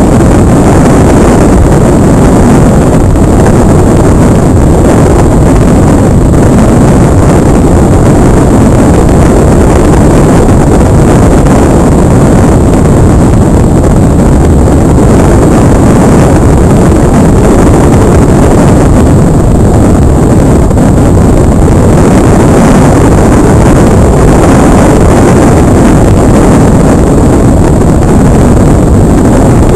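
Constant loud rush of air over the onboard camera's microphone of a Multiplex Cularis model glider in flight, with a thin steady high whine above it.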